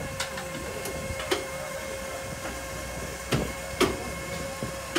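Hydraulic liftgate of an enclosed car-hauler trailer lowering, its pump motor giving a steady hum, with several sharp metallic clanks from the gate and its chains.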